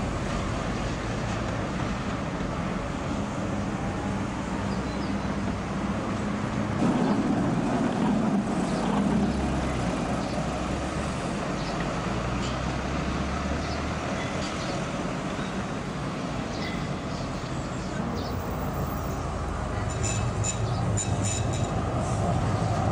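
City trams running past on street track: a steady rumble of wheels on rails and traction motors mixed with road traffic, louder about seven to nine seconds in. Near the end comes a run of short, sharp, high ticks.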